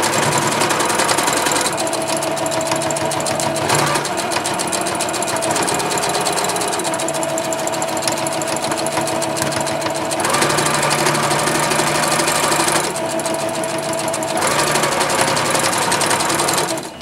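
Singer Confidence sewing machine running while stitching fabric scraps. Its note and speed shift in stretches of a few seconds, and it stops just before the end.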